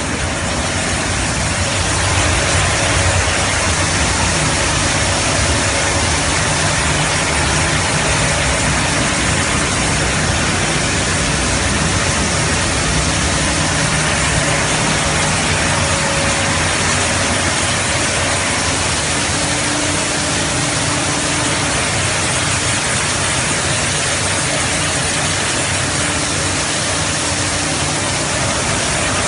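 Formcook Teflon-belt cooking line with gas oven and steam tunnel running: a steady, loud machinery rush with a low hum and a few faint steady tones.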